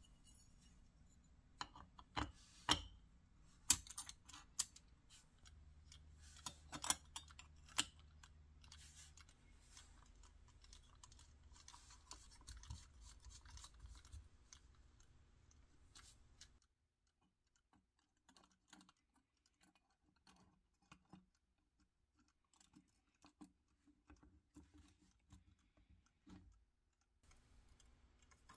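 Small metal parts of a 1960s Duncan parking meter mechanism clicking and tapping as they are handled and fitted together by hand. Sharp clicks come thick in the first several seconds, then turn sparse and faint.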